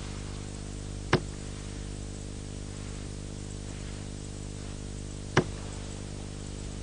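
Two short, sharp knocks about four seconds apart, over a steady low hum and hiss.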